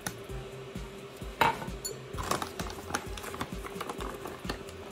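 A glass measuring cup knocking and clinking against a stainless steel mixing bowl as flour is poured in and the cup is set aside. The sharpest knock comes about a second and a half in. Quiet background music with a steady low beat runs underneath.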